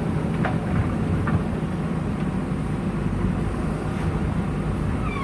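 Diesel engine of a JCB 3DX backhoe loader running steadily under work, with a few faint knocks in the first second and a half.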